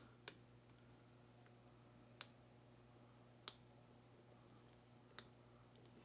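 Hook pick working the pin stack of a brass American round-body padlock (SET U.S. M182C) under light tension: four faint, sharp clicks spread over a few seconds as the pins are lifted, over a low steady hum.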